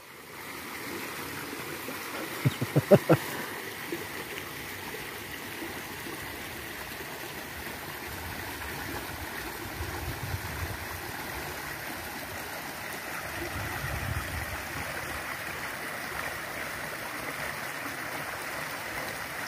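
Small stream flowing steadily, a continuous rush of water running over a shallow riffle. A few seconds in comes a quick run of about four sharp knocks.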